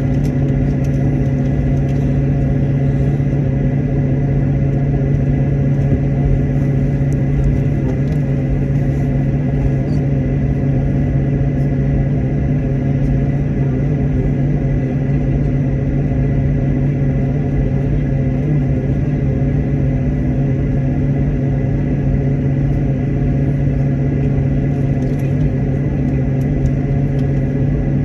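Aircraft cabin noise in flight: a steady, loud engine drone with a constant low hum and a faint high tone over it.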